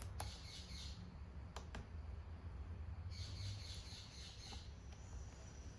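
A few light clicks of a small part being fitted into a MacBook Pro's aluminium case, over a steady low hum, with faint high chirping in the background.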